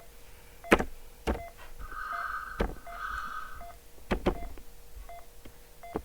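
Mechanical ventilator simulator sounds: a series of sharp clicks, each with a short electronic blip, as settings are stepped. From about two seconds in comes a two-part electronic alarm tone lasting nearly two seconds.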